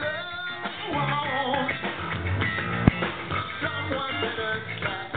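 Live rock band playing: electric guitars over a drum kit. A single sharp pop stands out about three seconds in.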